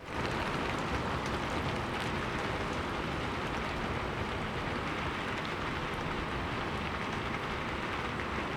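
Steady rain falling: a dense, even hiss with faint scattered drop ticks, fading in at the very start.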